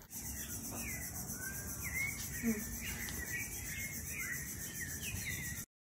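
Steady high-pitched insect chorus, like crickets or cicadas, with birds chirping over it in short rising and falling calls. The sound cuts off suddenly near the end.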